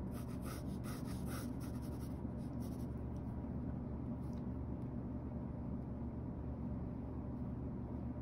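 Pencil scratching on sketchbook paper: a quick run of short strokes in the first couple of seconds, then a faint stroke or two, over a steady low hum.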